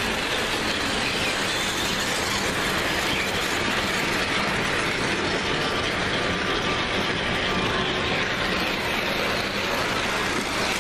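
O scale model trains running on the layout's track: a steady, continuous noise of wheels and motors.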